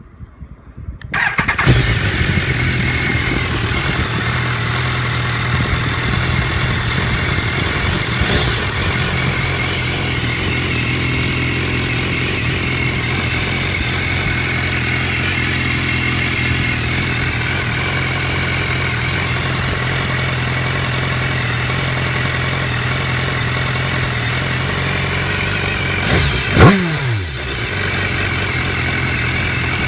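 Stock 2015 BMW S1000R's inline-four engine cranked on the starter about a second in, catching at once and settling into a steady idle. Near the end a single quick blip of the throttle sends the revs up and straight back down, the loudest moment, before it returns to idle.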